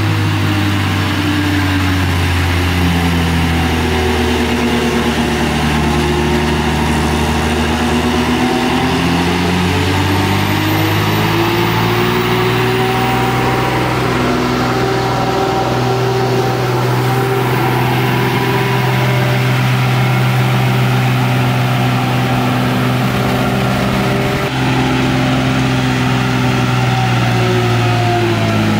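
Heavily overloaded multi-axle lorry's diesel engine pulling through a hairpin bend on a ghat road. The engine note dips and rises as it works, and tyre and engine noise swell as it passes close by about halfway through, then fall away as it moves off.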